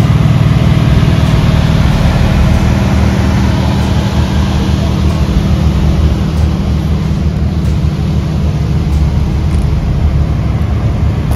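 Car on the move: a steady deep engine drone with road noise, easing a little about four seconds in.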